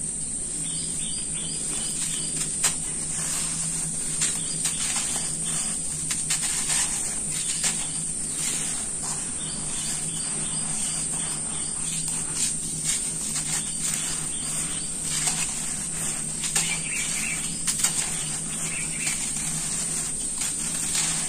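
Hands scooping and crumbling dry sand-and-cement powder in a metal pan: gritty crunching and sifting with many small crackles as the grit falls and is squeezed.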